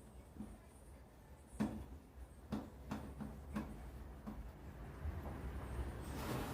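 A handful of light clicks and taps over a low hum, the sound of parts or tools being handled, with a louder rush of noise near the end.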